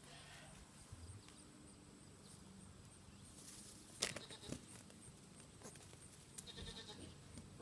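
Faint sounds of goat kids at play on concrete: a sharp hoof knock about four seconds in, a smaller one just after, and a faint goat kid bleat near the end.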